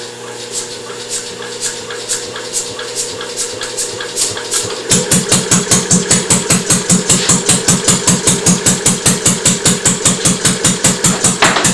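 Homemade single-cylinder engine with a heavy flywheel being spun over by an electric starting motor on a belt: a steady motor hum with light regular clicking. About five seconds in the engine fires and runs on its fixed throttle, with a loud, even beat of about five firing strokes a second.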